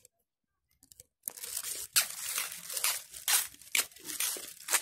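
A disposable face mask being handled and put on close to the microphone: irregular crinkling and rustling that starts about a second in, with sharper crackles now and then.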